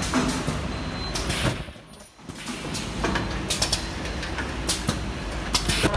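Webbing cutting and welding machine running: a steady mechanical din broken by repeated sharp clacks at an irregular pace, with a brief lull about two seconds in.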